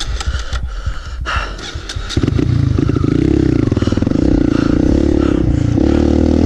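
Kawasaki KLX mini dirt bike's single-cylinder four-stroke engine under the rider. It is lower and clattery at first, then comes on loud under throttle about two seconds in, rising in pitch again near the end.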